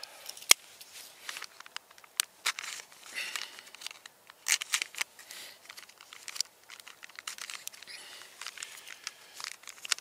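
Plastic food packaging crinkling and tearing as it is cut open with a knife, in short crisp bursts, with a sharp click about half a second in.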